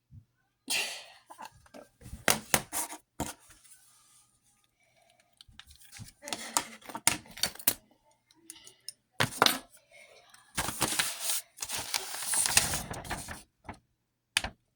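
Small objects being picked up, moved and set down on a cluttered desk: a string of clicks, light clatters and rustles, with a longer stretch of rustling and scraping near the end.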